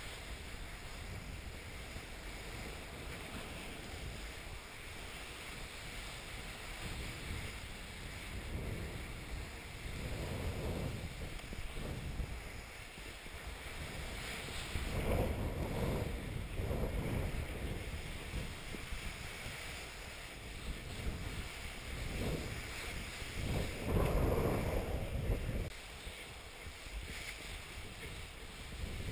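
Wind rushing over the microphone with the hiss of skis sliding over snow on a downhill run; the rush swells several times, loudest about 24 seconds in.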